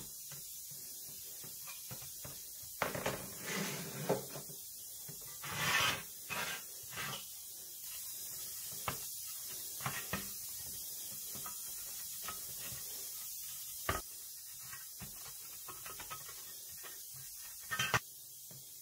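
Paper towel rubbing and wiping over bare pressed-steel toy truck parts, in scratchy strokes clustered a few seconds in. Then scattered clicks and knocks as the metal parts are handled and set down, the loudest about two-thirds through and near the end.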